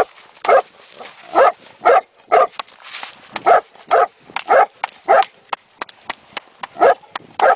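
A dog barking in short, sharp barks, roughly two a second, with faint clicks in between.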